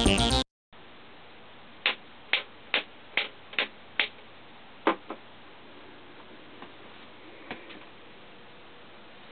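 A run of sharp single clicks over a faint steady hiss: about seven in quick succession, then two or three fainter ones further apart.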